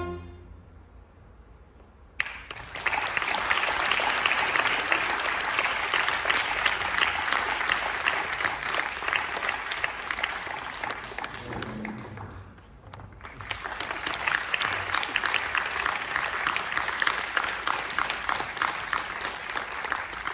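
The last chord of a string orchestra fades away, and after about two seconds of hush the audience breaks into applause. The applause dies down briefly about twelve seconds in, then swells again.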